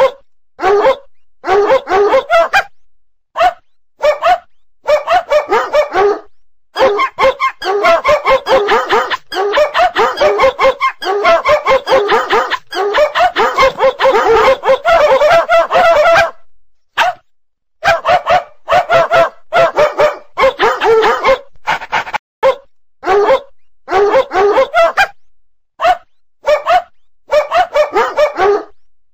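A dog barking over and over in quick strings of barks, broken by short pauses and one longer pause of about a second and a half just past the middle.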